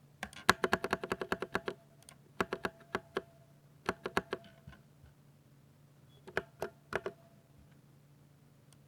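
Typing on a Ducky 60% mechanical keyboard with silver linear switches: quick runs of sharp keystroke clacks in four bursts, the first a fast flurry of about a dozen keys, then shorter runs with pauses between.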